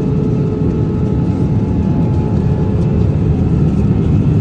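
Airliner cabin noise in flight: a steady, even noise of engines and airflow with a faint steady hum over it.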